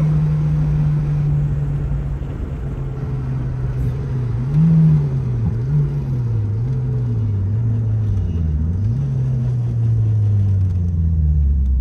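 Turbocharged 4G63 four-cylinder engine of a built 1998 Eagle Talon TSi AWD running under way. It holds a steady note, rises briefly about four to five seconds in, wavers up and down with the throttle for a few seconds, then settles lower and falls away near the end.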